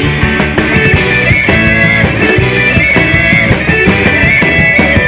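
Children's song from an English course book's listening track, in an instrumental passage with a steady beat.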